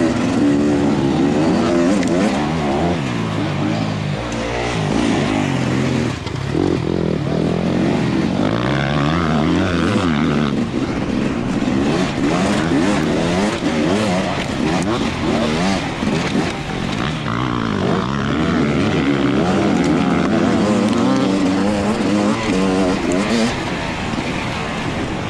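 Motocross dirt bike engine heard close from on board, revving up and falling back over and over as the rider works the throttle and gears around the track.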